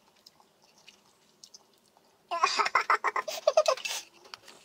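A woman's voice vocalising for about two seconds, muffled by a mouthful of food, after a couple of seconds of near silence broken only by faint clicks.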